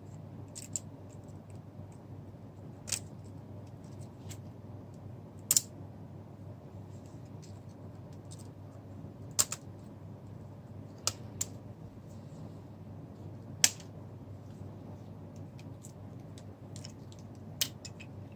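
Scattered sharp clicks and taps of small tools and plastic phone parts being handled while a smartphone is taken apart, about eight or nine at irregular intervals, over a low steady hum.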